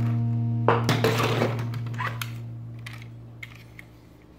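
A held distorted electric guitar chord from background music fades away, while plastic toy cars clatter and click as they are picked up and handled, the clatter loudest about a second in.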